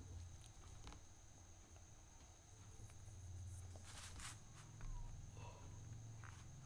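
Near silence: a low steady hum, with a couple of faint clicks about four seconds in.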